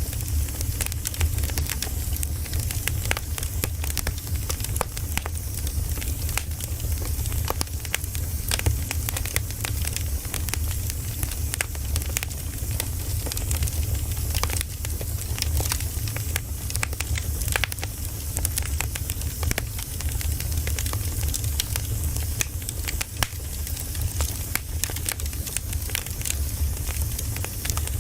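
Campfire burning, with dense irregular crackles and pops of wood over a steady low rumble of the flames.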